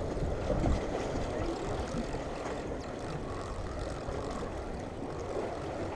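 Steady rumbling noise of wind and sea water washing against the shore rocks.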